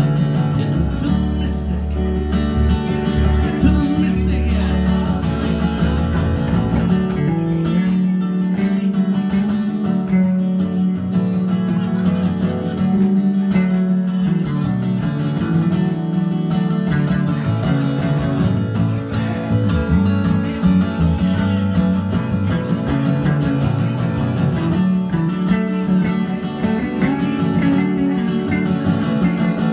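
Live acoustic guitar strumming over an electric bass line, an instrumental stretch of a song with no vocals recognised.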